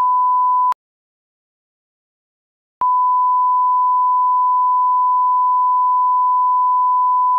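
A steady 1 kHz sine-wave test tone, a single pure pitch with no change in level. It stops with a click under a second in, is silent for about two seconds, then starts again with a click and holds steady.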